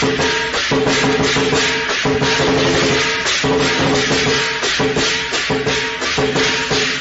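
Background music with a steady percussive beat over held tones.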